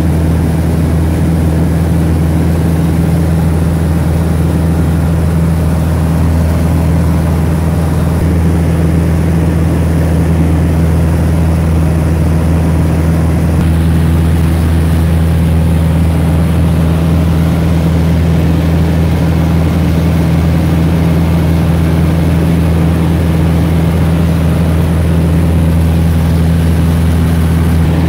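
Piston engine and propeller of a light high-wing airplane droning steadily in flight, heard loud from inside the cabin, with a slight change in the hiss about halfway through.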